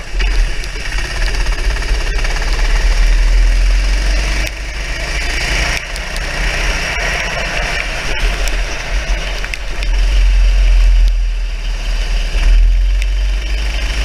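Racing kart engine running as the kart is driven at speed on a wet track, recorded by a camera mounted on the kart, with a heavy low rumble of wind on the microphone. The engine note dips briefly twice a few seconds in, then picks up again.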